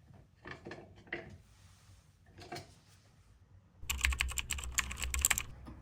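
Light clicks and taps: a few scattered ones, then a quick run of sharp clicks, like typing, from about four seconds in.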